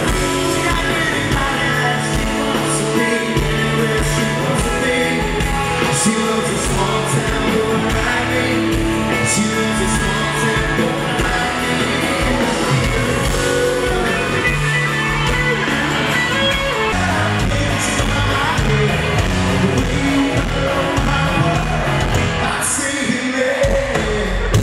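Music with singing: a full song mix that holds at a steady loudness.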